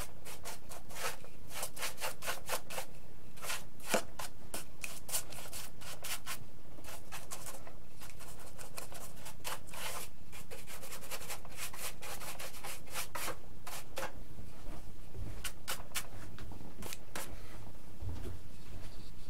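Paintbrush bristles brushing wet Polycrylic clear coat onto the EPO foam fuselage of an RC airplane: a quick, uneven series of scratchy strokes that thins out later on, with a couple of soft low bumps near the end.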